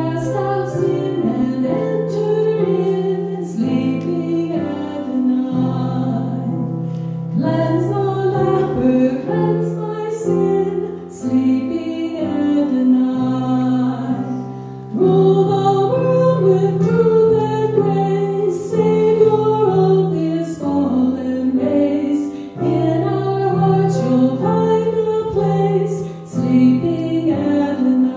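Church choir singing a Christmas cantata piece in harmony, in phrases that pause briefly and start again.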